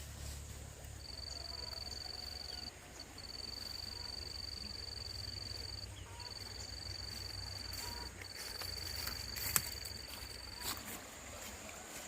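An insect trilling at one high, steady pitch in four long stretches of two to three seconds each with short breaks between, over a low rumble. A sharp click comes near the end.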